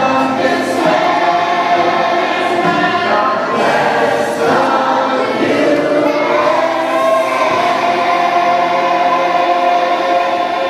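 A group of children singing a song together in chorus, holding long notes.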